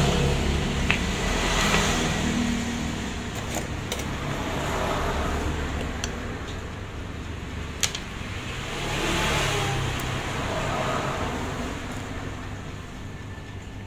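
A few sharp light clicks of steel tweezers on small watch-movement parts, over a steady low background rumble that swells and fades several times.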